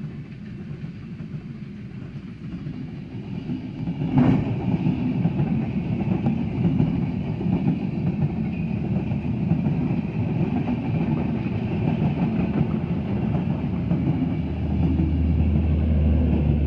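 LHB passenger coaches of an express train passing close by at speed, their wheels rumbling and clattering over the rails, with one sharp clack about four seconds in. Near the end a steady low hum joins as the rear generator power car goes by.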